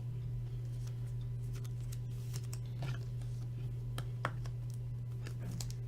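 Faint scattered clicks and light rustling of trading cards being handled, over a steady low electrical hum.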